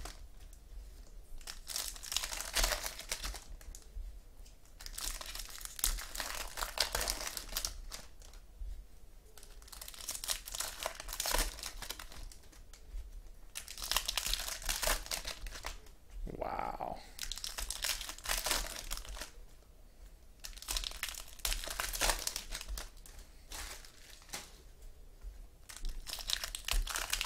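Foil wrappers of Topps Platinum football card packs crinkling and tearing as the packs are opened, in repeated bursts a few seconds apart.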